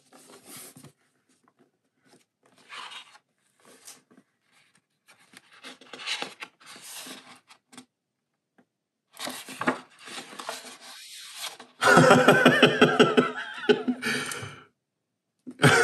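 Paper of a hardcover art book rustling as its pages are handled and turned, in short scattered bursts. About twelve seconds in, a man laughs for a couple of seconds, the loudest sound here.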